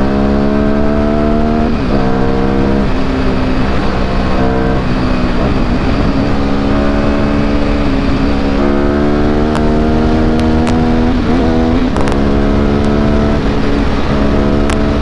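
A 750 cc two-cylinder motorcycle engine accelerating hard. Its note rises steadily and drops back several times as the rider shifts up through the gears, over a constant rush of wind.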